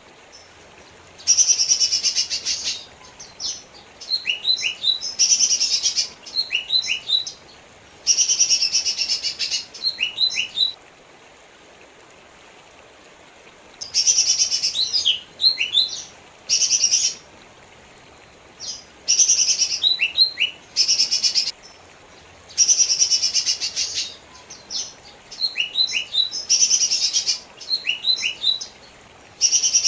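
Lesser green leafbird (cucak ijo mini) singing: repeated phrases of a dense, rapid chatter about a second long, each followed by a few quick sliding notes, with short pauses between phrases and one longer pause near the middle.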